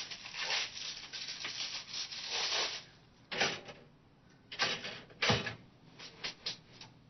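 Foil pastry wrapper crinkling and tearing for the first few seconds. Then come a few sharp clacks and clunks as toaster pastries are dropped into a toaster and its lever is pushed down, followed by a few small clicks.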